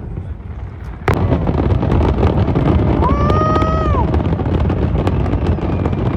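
A fireworks barrage that starts suddenly about a second in: dense, rapid crackling and popping over a continuous low booming rumble. Midway, a single held high tone rises slightly, then falls away after about a second.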